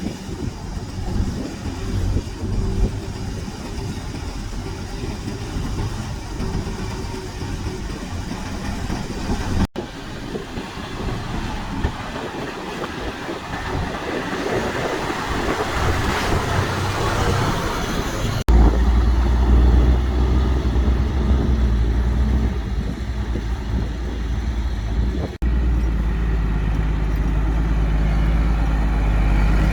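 Heavy earthmoving machinery at work: bulldozer and dump truck diesel engines running, with clanking. The sound changes abruptly three times, and a deep, louder engine rumble dominates the last third.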